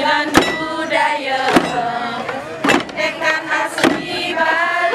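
Balinese tek-tekan ensemble: a group of voices chanting and singing together over hand drums and struck bamboo, with a sharp beat about once a second.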